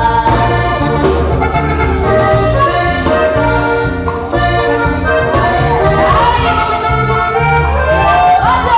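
Live dance-band music: an instrumental passage led by accordion over a steady, repeating bass beat, with a few sliding notes near the end.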